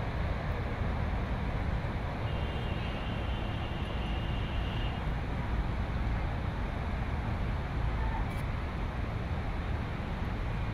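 Steady low rumble of distant city traffic, with a faint thin high tone for a few seconds near the start.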